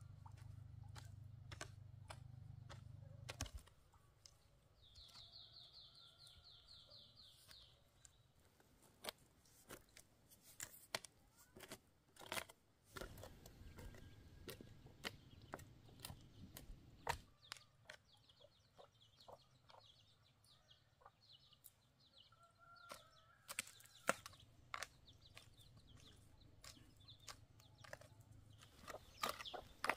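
Faint chickens clucking, with many scattered light clicks and knocks and a brief high trill a few seconds in.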